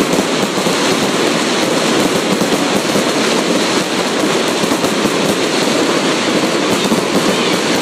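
Fireworks crackling: a dense, unbroken rattle of many small pops from a crackle effect, holding steady at a high level.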